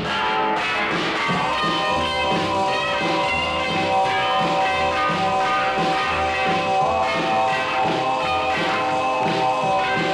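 Rock and roll music playing without singing: a steady beat under long held notes.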